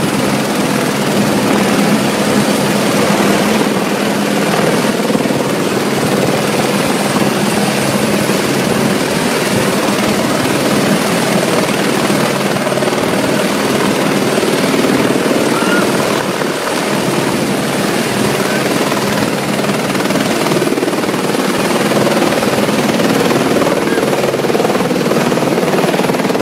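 Helicopter hovering low with a water bucket slung beneath it, its rotor and turbine engine running as a loud, steady din.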